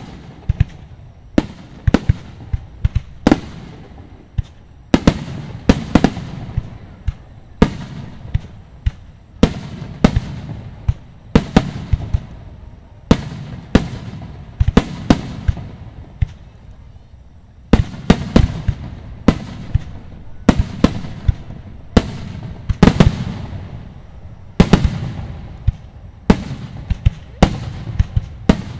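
Aerial fireworks shells bursting in quick succession: many sharp booms, each trailed by a low rumbling echo. The bursts thin out briefly just past the middle, then a dense volley follows.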